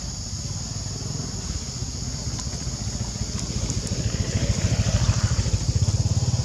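An engine running close by, its low throb growing louder about four seconds in, over a steady high-pitched drone.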